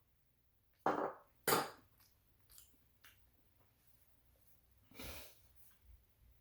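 A person's breathing sounds: two short, sharp sniffs or breaths about a second in, a few faint ticks, then a softer breath near the end.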